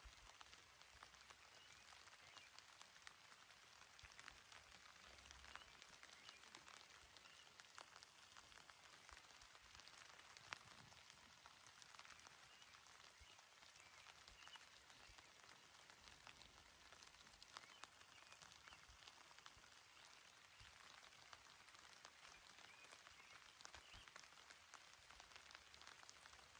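Faint, gentle rain falling on a grassy mountain meadow: a soft, even patter with many small drop ticks scattered through it.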